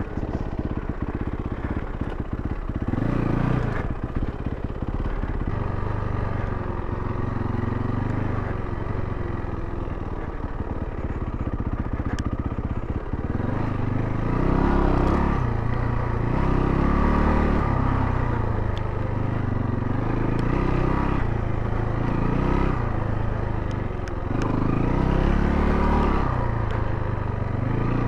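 Yamaha WR400F dirt bike's four-stroke single-cylinder engine running under load while ridden along a trail. The revs rise and fall with the throttle again and again, every couple of seconds in the second half.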